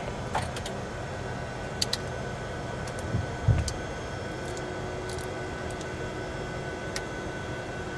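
Steady flight-deck noise of a Boeing 737-200: engine and air-conditioning hum with a faint whine, a few light clicks and a short low thump about three and a half seconds in.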